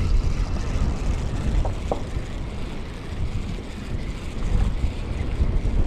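Strong wind buffeting the microphone: a loud, uneven low rumble that swells and drops with the gusts.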